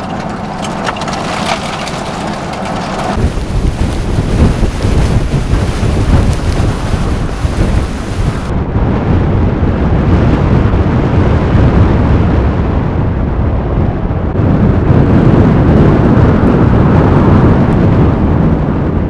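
Blizzard wind buffeting the microphone with a deep rumble, the sound changing abruptly about three and eight seconds in.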